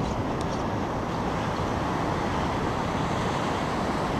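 Steady, even rush of breaking surf and wind on the microphone of a helmet-mounted GoPro.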